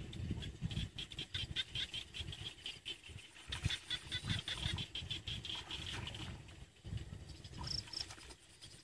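A rapid, pulsing high-pitched animal call for most of the first six seconds, over irregular low rumbling and thumps, with a short high chirp near the end.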